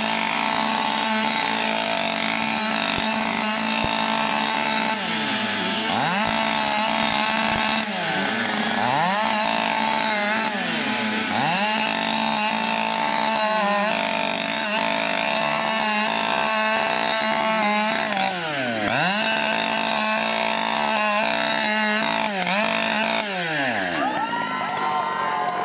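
Two-stroke chainsaws running at high revs while cutting off wooden sticks set in a log. Their engine notes dip and recover again and again as the chains bite into the wood. Near the end one saw's note falls away.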